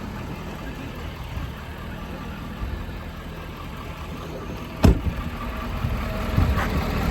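An engine idling steadily, with one sharp knock about five seconds in, after which the low rumble grows louder.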